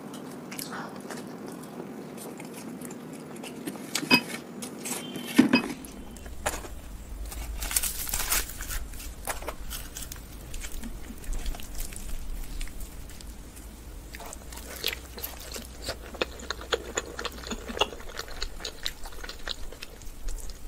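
Close-miked eating: puffed fried flatbread (luchi/puri) being torn and bitten, with chewing and wet mouth sounds. Sharp clicks and snaps come throughout, the loudest about four and five and a half seconds in, and a low steady hum starts from about five and a half seconds.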